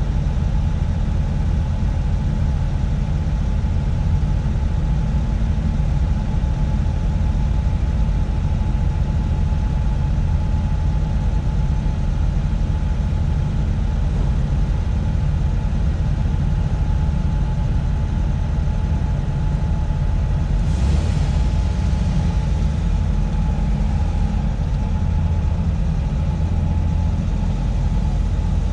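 Engines idling in a steady low rumble, with a faint steady whine running over it and a brief hiss about twenty-one seconds in.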